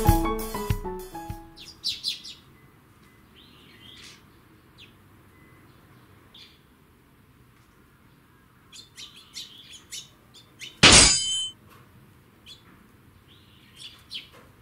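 Eurasian tree sparrows chirping in short, scattered calls after piano music fades out in the first second or so. A brief, loud burst of rushing noise comes about three-quarters of the way through.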